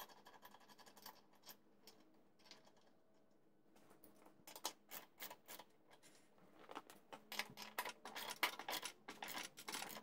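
Faint metal clicks and taps from a lawn mower blade and its bolt being fitted back onto the spindle. The clicks are sparse at first and become a quicker, busier run of clicking in the second half.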